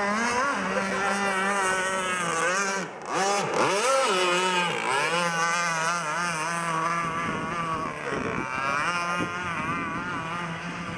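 Gas-powered RC boat's small gas engine running hard, its pitch rising and falling as the throttle is worked. About three seconds in it drops off briefly, then revs back up.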